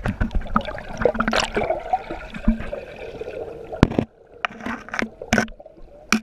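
Creek water heard with the microphone underwater: muffled gurgling and sloshing with many sharp knocks and clicks scattered through it, the gurgling thinning about four seconds in.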